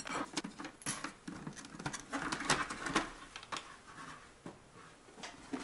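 Irregular light clicks and taps of hard plastic as a Ski-Doo BV2S snowmobile helmet's visor is worked off its side pivot by hand, fewer near the end.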